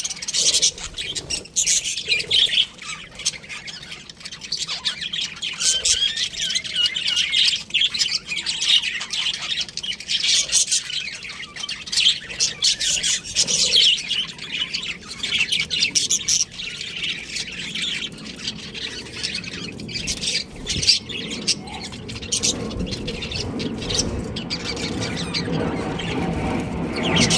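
Budgerigars chirping and squawking in rapid, overlapping calls. A low steady hum builds up underneath in the last few seconds.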